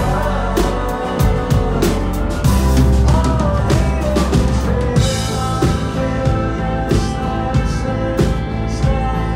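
Live rock band playing: drum kit keeping a steady beat under bass guitar and guitars, with a bright crash about five seconds in.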